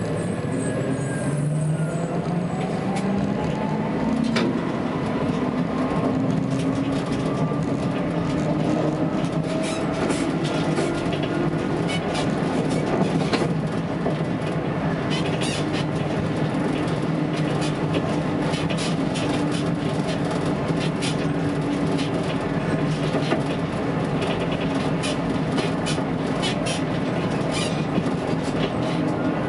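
Tatra T3S tram running along its track, its drive whine rising in pitch over the first several seconds as it picks up speed, then holding steady. From about ten seconds in, frequent clicks and knocks of the wheels on the rails run over the steady running noise.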